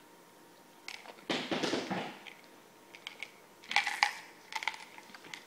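Crinkling plastic candy wrappers being handled, Warheads sour candies being unwrapped, in two main bursts about a second in and near four seconds, with scattered sharp clicks between.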